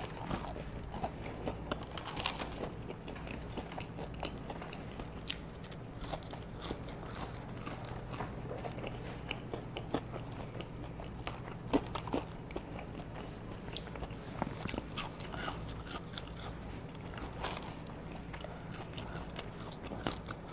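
Close-up eating of McDonald's Chicken McNuggets and french fries: quiet, irregular chewing and crunching, with a few louder bites.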